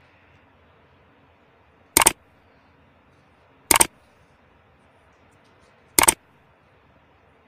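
Three sharp mouse-click sound effects from an edited-in like, subscribe and bell-button animation, spaced about two seconds apart, each a quick double click.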